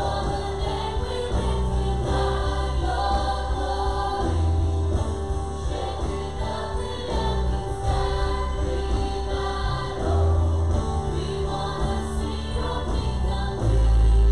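Live contemporary worship song: several singers on microphones over a band, the bass holding long low notes that change every couple of seconds.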